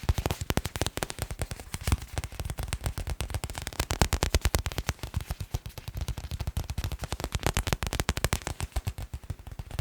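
Fast ASMR tapping on assorted white objects: a dense, continuous run of sharp taps, about a dozen a second, rising and falling in loudness.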